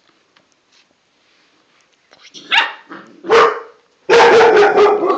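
A dog barking on alert: two sharp barks about a second apart, then a longer, held bark near the end.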